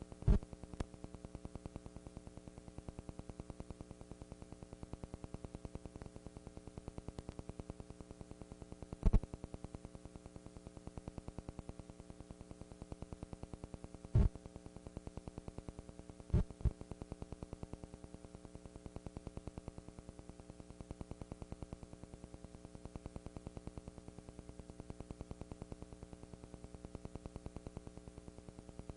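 Steady electrical hum and buzz on an old videotape recording, broken by a few sharp clicks: one near the start, one about nine seconds in, one at about fourteen seconds, and two close together a couple of seconds later.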